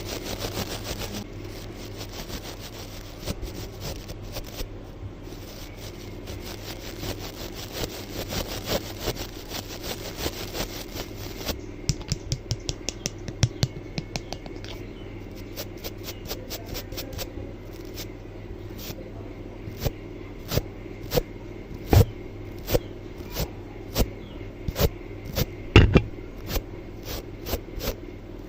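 Close-miked ASMR scratching: a dense, steady brushing scrape for about the first eleven seconds, then a run of separate sharp taps and clicks at irregular spacing, the loudest near the end.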